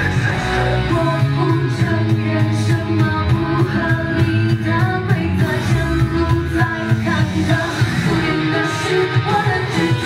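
Loud live rock-pop song with a steady beat and a woman singing.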